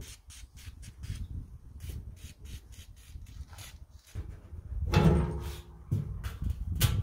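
Light clicks and taps of a screwdriver and hand tools working at the fuel pump lock ring on a steel fuel tank. A dog whines briefly about five seconds in.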